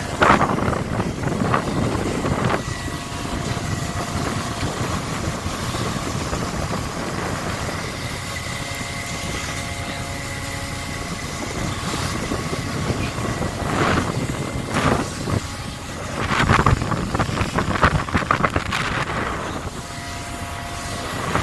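Steady drone of a longline fishing vessel's engine and deck machinery, with a few steady tones running through it, and wind on the microphone. Louder irregular bursts of noise come in the first couple of seconds and again in the second half.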